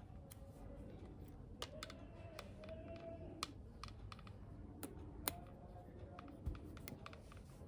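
Irregular light clicks and taps of small plastic toy pieces and packaging being handled, some sharper than others.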